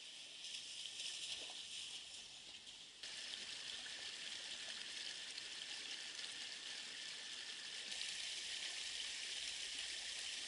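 Shallow creek running over stones: a steady rushing of water that steps up louder about three seconds in.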